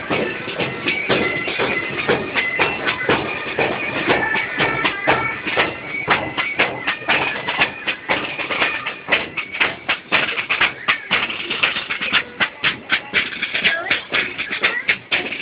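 Procession music: fast, loud drumming with several strikes a second, with a high held melody over it in the first few seconds.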